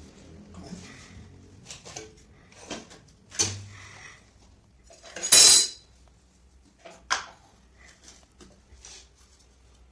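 Hard objects clinking and knocking against each other in a series of separate strikes, the loudest about five seconds in.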